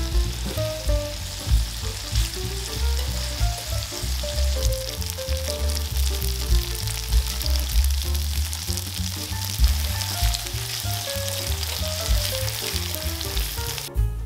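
Tofu slices frying in hot vegetable oil in a nonstick pan: a steady crackling sizzle that cuts off near the end. Background music with a bass line plays under it.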